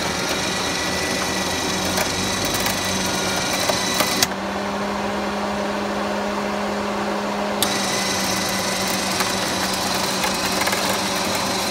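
Electric winch on a Polaris RZR 570 running with a steady, even-pitched whir as it pulls the mud-stuck machine free.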